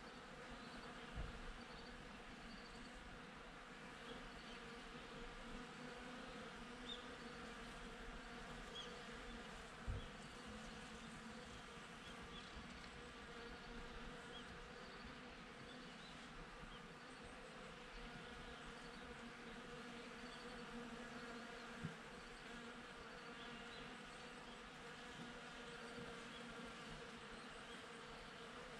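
Honeybees buzzing steadily as they forage at flowers, a continuous low hum. Faint short high chirps sound now and then, and three soft low thumps come about a second in, about ten seconds in and a little past twenty seconds.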